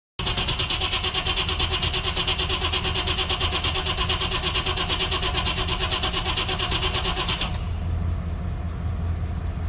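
1955 Chevy Nomad's supercharged engine being cranked over by its starter, with a fast, even pulsing for about seven and a half seconds. The cranking then stops and a steady low engine idle carries on.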